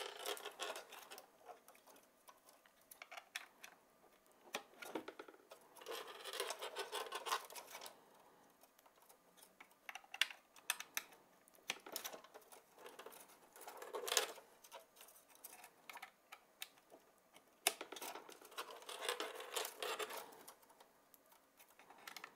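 HDMI cables being handled and plugged into a video mixer's ports: faint, irregular clicks of connectors and plastic, with short bursts of cable rustling.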